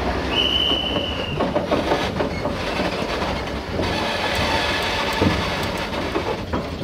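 Wheels of the steam locomotive 142.044 rolling slowly over the rails, with a rumble and scattered clicks and clanks. A high steady wheel squeal runs for about a second, starting about half a second in.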